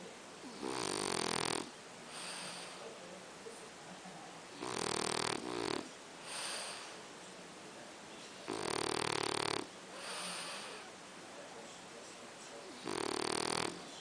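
A pet snoring: four loud, rattling breaths in, each about a second long and coming every four seconds or so, each followed by a softer breath out.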